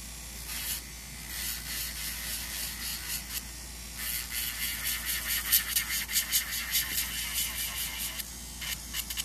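Melodysusie Scarlet electric nail drill with a sanding band grinding an acrylic nail in short strokes, a rasping sound that pauses briefly before the middle and then comes in quick pulses.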